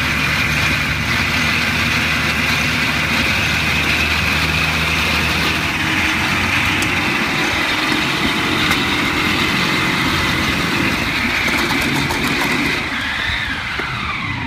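48-cylinder motorcycle engine, built as six inline-eights of 4.2 litres in all, running steadily while the bike is ridden slowly. Near the end it grows quieter and a high whine falls in pitch.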